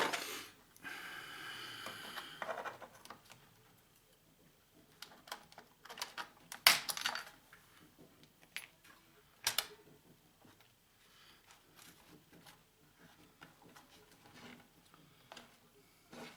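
Scattered clicks and knocks of hard plastic and small parts being handled while a portable oxygen generator is taken apart, with a brief squeak about a second in and the sharpest knocks about 7 and 9.5 seconds in.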